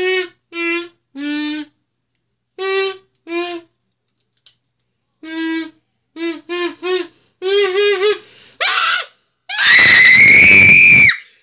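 A kazoo buzzing out a string of short hummed notes, some in quick runs of three, then a loud, shrill scream lasting about a second and a half near the end.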